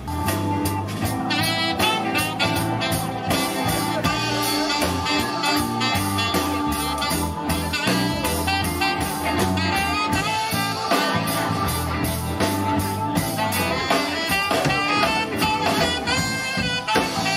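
Live band playing an instrumental passage through a PA: a saxophone carries a melody over a steady drum-kit beat, electric guitars, bass and keyboard. There is no singing.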